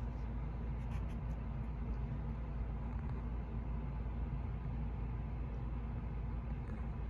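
52-inch Hunter Oakhurst II ceiling fan running slowly with a steady low hum; its capacitor is bad, which is why it turns slowly. A few faint ticks about a second in.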